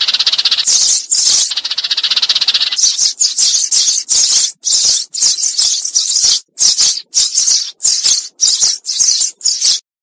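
Eurasian tree sparrows chirping and chattering in a dense, overlapping stream, a flock-calling lure recording meant to draw sparrows in. About halfway through it breaks into separate quick chirps, about three a second, which stop abruptly near the end.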